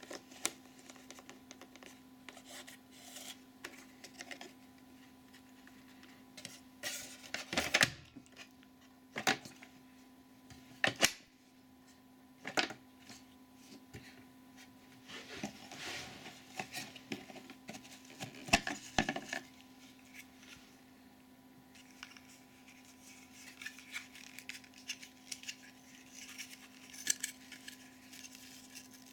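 Plastic parts of an AEG UltraOne Quattro vacuum cleaner's dust-bag compartment and its accessories being handled: scattered sharp clicks and knocks with softer rubbing and rustling between them, the loudest knocks falling in the first half.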